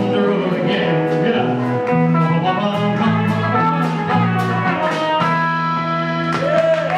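Live honky-tonk country band playing an instrumental passage: acoustic and electric guitars over a steady bass line and drums with regular cymbal hits.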